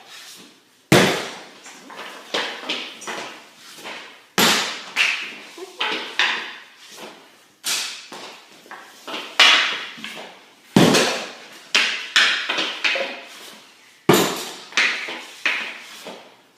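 Repeated sharp knocks and clattering, with a heavier hit about every three seconds.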